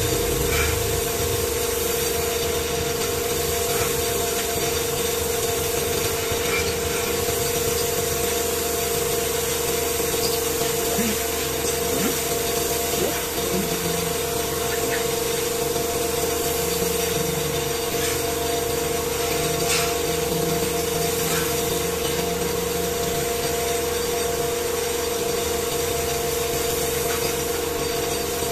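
A steady machine hum holding one constant tone, under faint scrubbing of a sponge dragged through wet paint on a metal panel.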